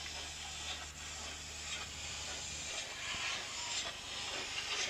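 Bigjigs wooden toy train cars rolling along wooden track: a steady rushing hiss with faint clicks. A low hum underneath stops a little past halfway.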